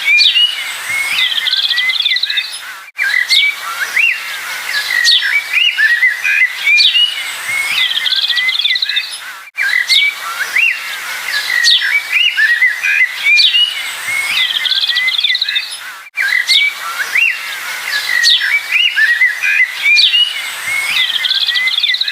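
Birds chirping, with quick rising and falling whistled notes and a short trill, repeating as a loop about every six and a half seconds with a brief dropout at each repeat.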